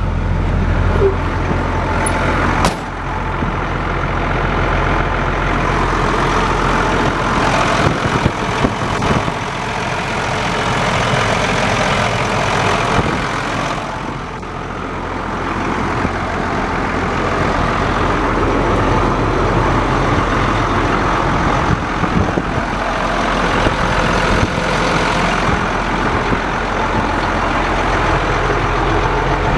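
Ford LNT8000 vacuum truck's diesel engine running steadily, with a steady rushing noise over it. A sharp click about three seconds in.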